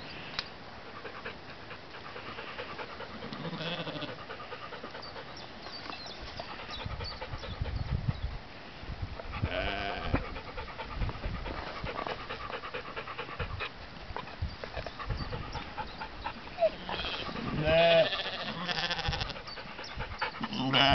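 Sheep bleating, a wavering call about ten seconds in and another near the end, with low rumbling and small shuffling noises between.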